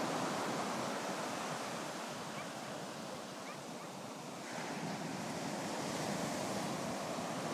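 Ocean surf washing onto a sandy beach, easing off a little mid-way and swelling again about four and a half seconds in as the next wave breaks.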